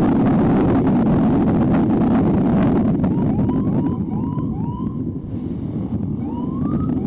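Motorcycle ambulance on the move, wind buffeting the microphone over the engine's steady rumble. From about three seconds in, its siren gives a run of short rising whoops, several a second, then one longer whoop near the end, used to clear a way through traffic.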